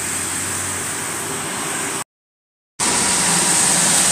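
Steady rushing noise of floodwater and traffic on a flooded road. About two seconds in it cuts out completely for under a second. It comes back slightly louder, with a low engine hum from a vehicle wading through the water.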